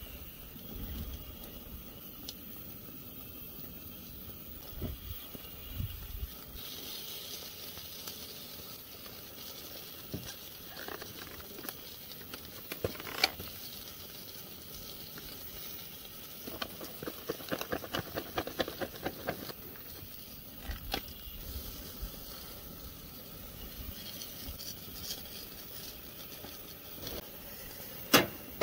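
Chicken and vegetables sizzling on a propane grill, a steady hiss, with metal utensils clicking and scraping now and then. There is a quick run of clicks a little past halfway and a sharp clack near the end.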